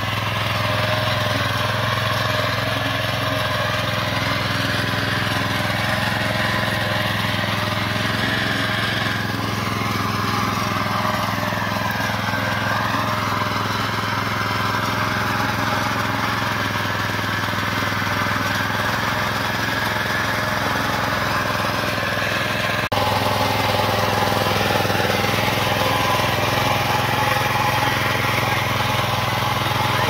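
Petrol walk-behind rotary tiller (mini power tiller) running steadily under load as its tines churn through the soil. The engine note stays even throughout and is a little louder for the last several seconds.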